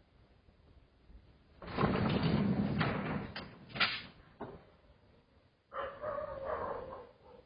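About two seconds of loud rattling and clattering with several sharp knocks, then a short animal cry that lasts about a second, typical of a dog.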